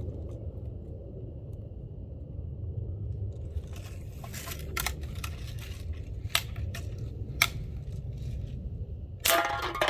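BB gun being worked and fired at soda cans: a scattered series of sharp clicks and snaps, bunched in the middle, over a low steady rumble.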